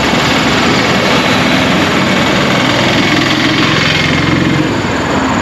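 Busy road traffic: a steady rush of passing vehicles, with one engine running louder and closer from about three seconds in until shortly before the end.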